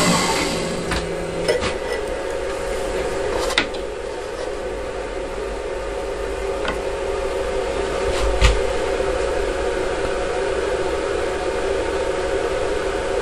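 3-axis CNC milling machine humming steadily with no cutting, and a few sharp metallic clicks and knocks as the machined aluminium part is handled. The loudest click comes about eight seconds in.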